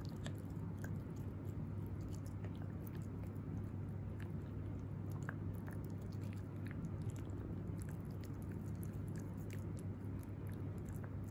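Italian greyhound puppy chewing and gnawing a dental chew, with many small irregular crunchy clicks from its teeth over a steady low hum.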